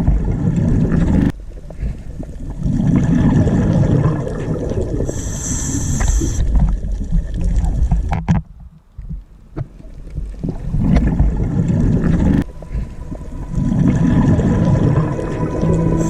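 Sea water sloshing and surging in slow swells, with a brief lull about halfway through.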